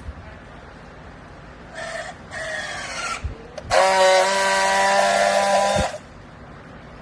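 A horn sounding one loud, steady tone for about two seconds, starting and stopping abruptly, after a couple of shorter, rougher sounds.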